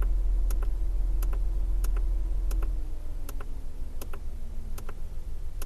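Repeated clicks of a GOTBOOST throttle controller's mode button, pressed about once every two-thirds of a second to step through its modes to Rally. Underneath is the low hum of the car's engine idling, which eases off about halfway through.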